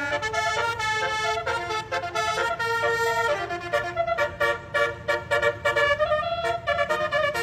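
A bus's Basuri-style multi-tone telolet horn playing a melody, several notes sounding together and stepping from note to note. In the second half it breaks into quick short toots. A steady low hum lies underneath.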